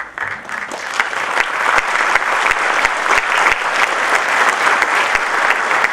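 Audience applauding: many hands clapping together, starting suddenly, building over the first second and then holding steady.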